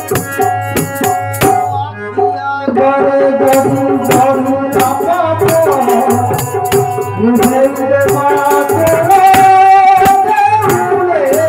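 Odia devotional bhajan: a harmonium plays a melody over rattling hand percussion, and a man's voice comes in singing about three seconds in and carries on over the accompaniment.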